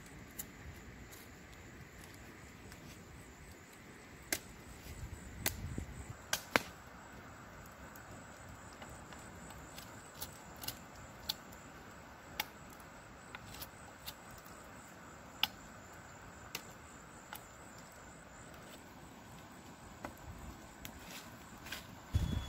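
Faint steady outdoor background hiss, broken by scattered sharp clicks every second or few.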